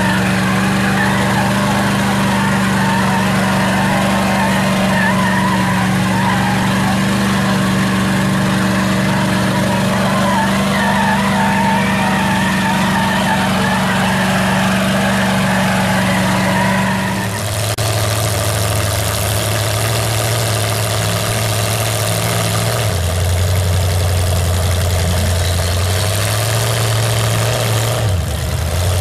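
Big lifted mud-truck engines running hard under load in a truck tug-of-war, one steady high engine note held for a long stretch. About two-thirds of the way in it cuts to a lower engine note that drops, rises again and dips briefly near the end.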